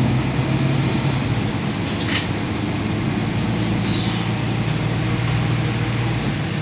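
Mercedes-Benz OC500LE city bus heard from the passenger cabin while driving: a steady low engine drone with road noise. A brief high sound comes about two seconds in, and the engine note drops near the end.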